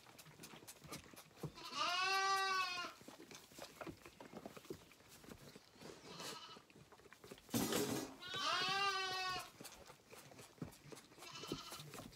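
Zwartbles lambs bleating: two loud bleats of about a second each, one about two seconds in and another around eight seconds in, with a fainter bleat near the end. A brief noise comes just before the second bleat.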